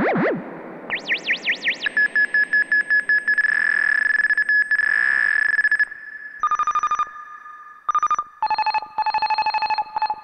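Moog Werkstatt-01 analog synthesizer making high, ringtone-like bleeps. A fast wobbling pitch sweep gives way to a steady high tone pulsing rapidly for a few seconds. Short beeping notes at a few different pitches follow, played from a keyboard.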